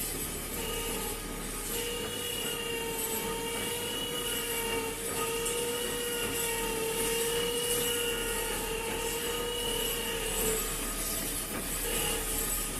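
A machine running with a steady, slightly wavering high whine over continuous mechanical noise. The whine breaks off about ten seconds in and comes back near the end.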